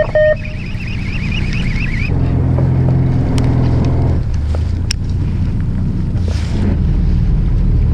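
Fishing boat's engine running steadily with wind on the microphone. In the first two seconds a baitcasting reel whirs as line is wound in fast, and the engine note swells for a couple of seconds after it.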